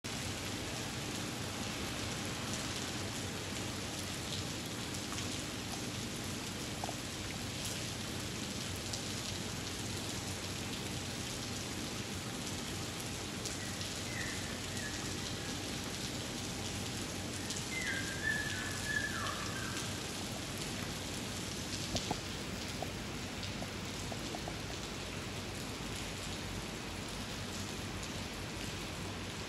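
Steady rain falling on wooden floorboards, with scattered ticks of single drops. A couple of short falling whistles come a little past the middle.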